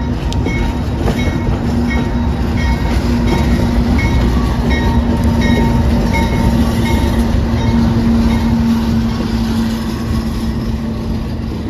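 Loaded coal cars of a freight train rolling by with a heavy rumble. A steady droning hum and a short high chirp repeat about every two-thirds of a second from the moving cars, the chirp fading out near the end.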